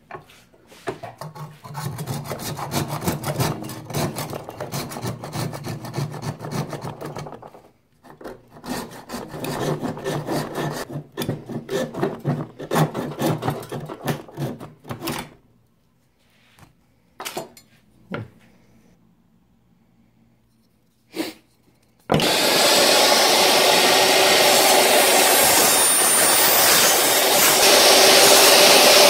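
Small hand saw cutting through deer bone clamped in a vise: rapid back-and-forth strokes in two long runs, then a few separate knocks. About 22 seconds in, a power saw starts and runs loudly and steadily.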